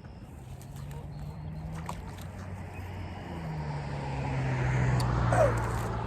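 A motor vehicle's engine passing by, a low hum that drops in pitch about three seconds in, grows louder toward a peak near the end and then starts to ease off.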